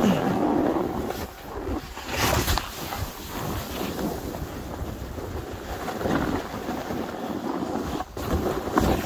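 Snowboard sliding and carving down loose, tracked snow: a continuous rough hiss that swells several times as the board turns, with wind buffeting the microphone.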